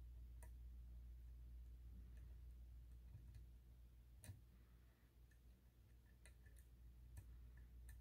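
Faint, scattered clicks of a dimple pick working the inner and outer pins inside a Mul-T-Lock cylinder, the sharpest a little past halfway and a few more close together near the end, over a low steady hum.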